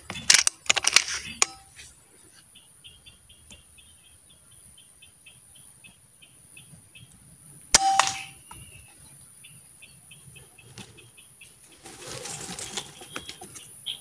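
A scoped air rifle fires once about eight seconds in: a sharp crack with a short metallic ring. Before and after the shot come runs of quick, faint high clicks, several a second.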